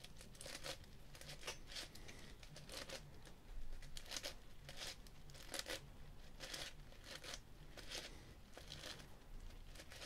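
Faint plastic clacks of the layers of a 10x10 Meilong speed cube being turned, about one or two turns a second. The turns are slice moves of an edge-parity algorithm being worked through to flip two unpaired edges.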